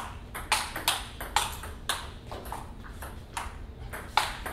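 Table tennis rally: the celluloid ball clicking sharply off the paddles and the table, about two ticks a second, with a slightly longer gap midway.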